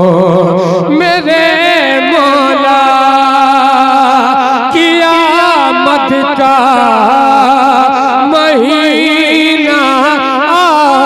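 A man singing a manqabat (Urdu devotional poem in praise of Ali) into a microphone, drawing out long held notes with wavering, ornamented turns rather than words.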